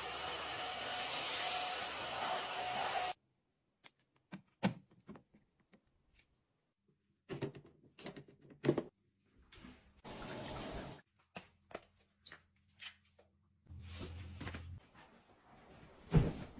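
A stick vacuum cleaner running with a steady high whine, cutting off abruptly about three seconds in. After it come scattered clicks and knocks of household handling, with a few short bursts of rushing noise.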